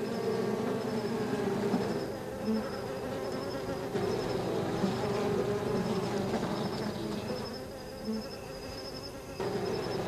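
A swarm of African honeybees buzzing at their hive as it is smoked with a smouldering torch and opened, a steady wavering drone that eases somewhat about seven and a half seconds in and swells again near the end. A faint high chirping repeats about twice a second behind it.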